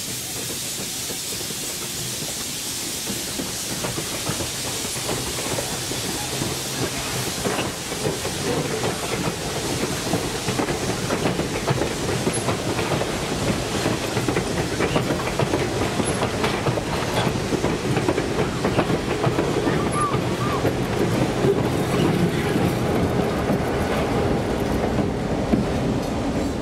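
Passenger train cars, open-top excursion cars and heavyweight steel coaches, rolling past with their wheels clicking rapidly over the rail joints above a steady rumble that grows somewhat louder toward the end.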